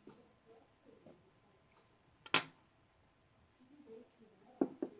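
Small parts of a Norinco NP34 pistol clicking as they are handled and fitted during reassembly: one sharp click a little over two seconds in, then two softer clicks near the end, with faint handling noise in between.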